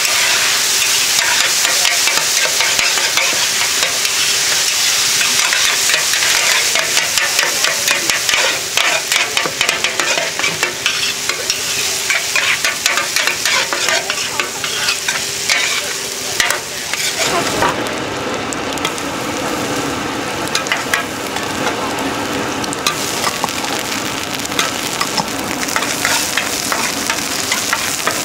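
Cubed radish cake frying in oil on a large flat wok: a continuous sizzle with repeated scraping and clinking of two metal spatulas against the pan as the cubes are tossed. About two-thirds of the way through the sizzle turns deeper.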